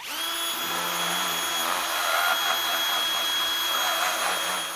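Cordless 18V drill running a small end mill, cutting a shallow notch into the edge of a metal machine casing. Its motor whine starts abruptly and holds steady throughout.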